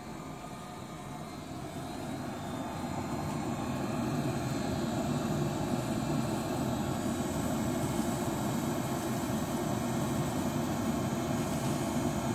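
Brötje gas condensing boiler running on its first firing after the replacement: a steady hum from the combustion fan and burner, which grows louder over the first four seconds and then holds level. The owner still notices this hum despite the replacement.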